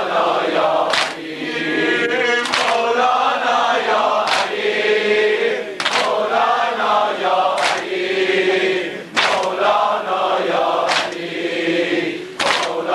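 Male mourners chanting a lament in unison, with a sharp collective chest-beating slap about every second and a half to two seconds, eight in all.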